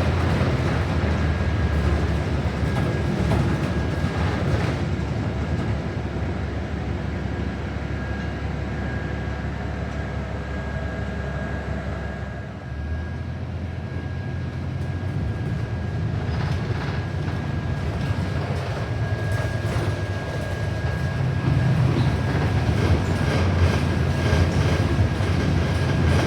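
Cabin sound of a New Flyer XD40 diesel city bus under way: a steady low rumble with a thin, steady high whine. It eases off about halfway, then builds again with a quick rattling clatter from the tire chains on the snowy road.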